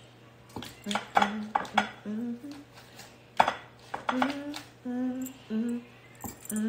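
A woman humming a tune in short held notes, over clinks and taps of a glass baking dish as she greases it with butter. One sharp clink stands out about three and a half seconds in.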